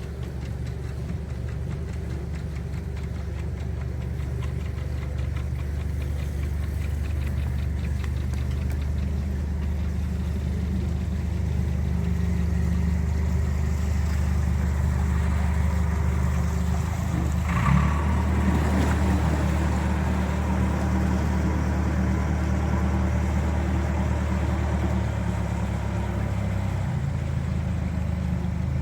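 A motor boat's engine running slowly and steadily, growing gradually louder as the boat comes closer into the lock, with a single brief knock a little past halfway.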